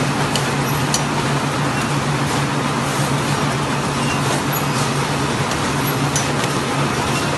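Automatic paper napkin folding and packing machinery running steadily: a continuous machine noise over a constant low hum, with a few light sharp ticks.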